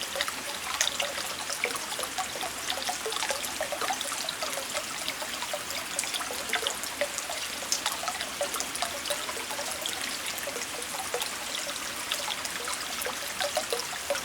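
Steady rain falling: an even hiss of rain with many small, sharp drop impacts scattered throughout.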